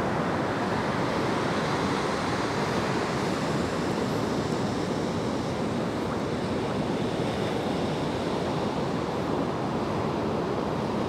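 Steady rush of ocean surf breaking on a beach, mixed with wind.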